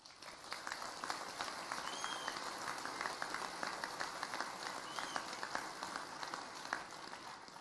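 Audience applauding in a large hall: many hands clapping together, swelling up just after the start and dying away near the end.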